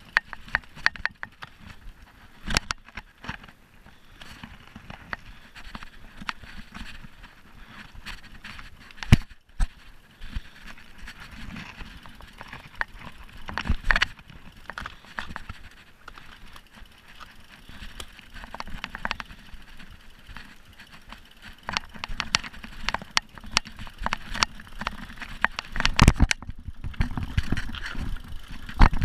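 Mountain bike rolling over a rough dirt and leaf-litter trail: tyre noise with irregular sharp clicks, knocks and rattles from the bike jolting over the ground. The knocks come thicker and heavier near the end.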